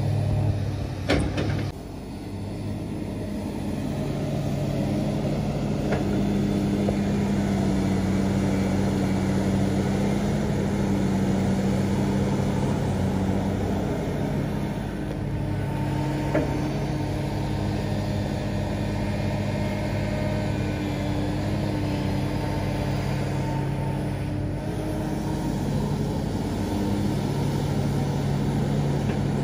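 Komatsu PC350LC hydraulic excavator digging: its diesel engine runs steadily under load, the engine note dropping and rising again as the hydraulics work the boom and bucket. A clank about a second in and a single knock about halfway through, from the bucket striking earth and rock.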